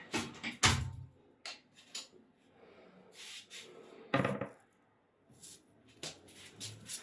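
Several sharp knocks and clatters of hard objects being handled or set down, the loudest about half a second in and another a little after four seconds, with quieter rubbing and scraping between.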